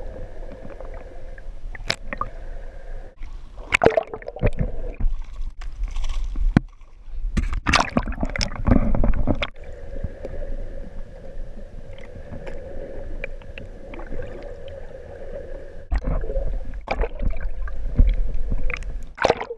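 Muffled underwater sound through a GoPro housing: water gurgling and sloshing over a low rumble and a steady hum. Louder splashing surges come about four seconds in, for a couple of seconds near the middle, and again near the end.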